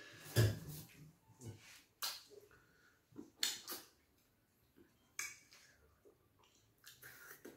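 A handful of short, wet smacks and clicks, spread out with quiet between them, from people eating fufu and ogbono soup with their hands: fingers working the food on the plates, and mouth sounds.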